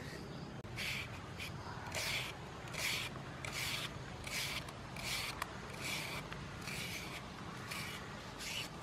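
Metal hand peeler scraping along a green cooking banana in repeated strokes, about one every three-quarters of a second.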